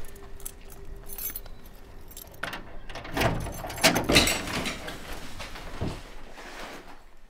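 A bunch of keys jangling and clicking as they are handled at a gate lock, with louder rattling about three to four seconds in.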